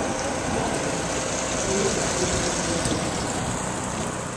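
Outboard boat motors idling and running at low speed on the water, a steady engine noise.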